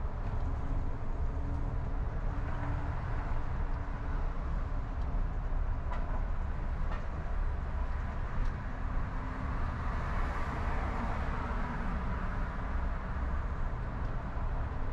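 Car driving along a city road: a steady low rumble of engine and road noise with tyre hiss. About ten seconds in, the hiss swells as another car draws alongside and passes.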